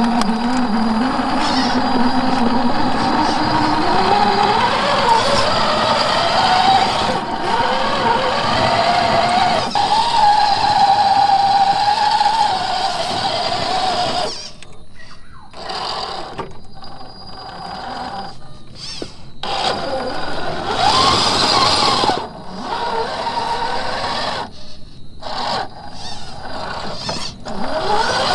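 1/10-scale RC crawler's electric motor and gear drivetrain whining under throttle, the pitch rising and wavering as it climbs. About halfway through it turns to short stop-start bursts of power with brief pauses.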